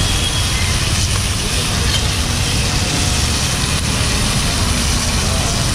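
Whole fish frying in oil on a large flat griddle, with a steady sizzling hiss over a constant low rumble.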